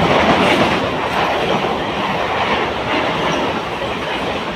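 Moving passenger train heard from inside a carriage at its open doorway: a steady rumble of steel wheels running on the rails, with clickety-clack over the rail joints.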